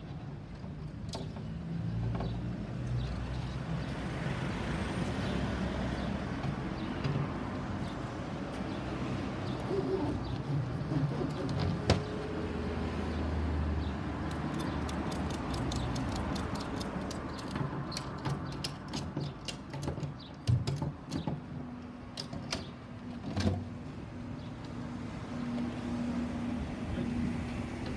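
Cargo ratchet strap being cranked tight on a plywood box, giving a run of quick clicks past the middle, with a few knocks from plywood panels. Under it runs the low rumble of a passing road vehicle.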